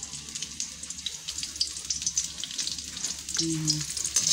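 Ginger sizzling and crackling as it sautes in hot oil in a pan, with many small pops, a little louder near the end.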